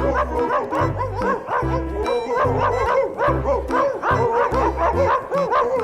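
A dog barking and yipping in quick, repeated short calls over background music with a pulsing bass line.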